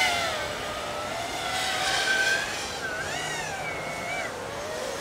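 FPV racing quadcopter's brushless motors and propellers whining, the pitch swinging up and down as the throttle changes in flight.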